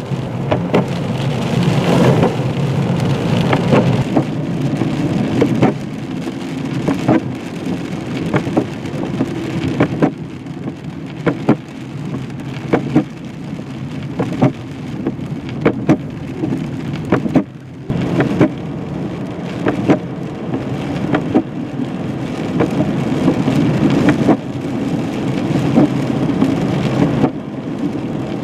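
Heard from inside a car on a wet, icy road: steady road and tyre noise, with many sharp, irregular ticks of small hard pellets striking the windshield and body.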